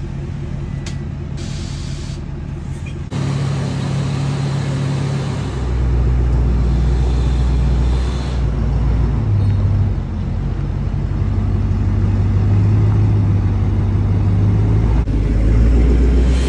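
A truck engine running steadily with a deep rumble, getting louder about 3 s and again about 5.5 s in.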